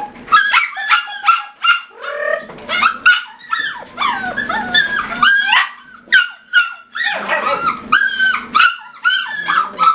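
A litter of collie puppies yipping and whining together: many short, high-pitched calls overlapping without a break.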